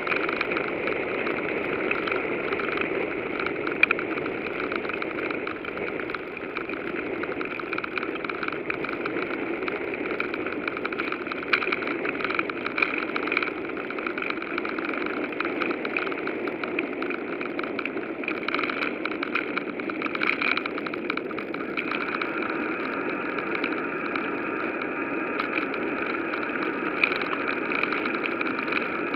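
Steady rolling noise of a bicycle ride picked up by a camera on the move, an even rushing with a few small clicks and rattles.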